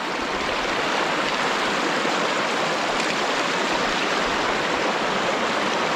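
Steady rush of a mountain river's water flowing over stones, an even hiss with no breaks.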